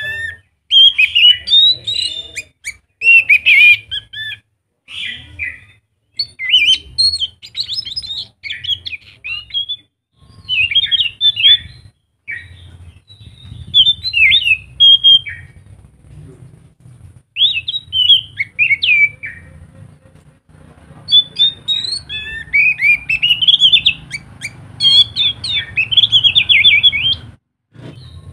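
Anis macan thrush singing loudly in bursts of quick, varied twittering phrases separated by short pauses, with a longer pause just past halfway.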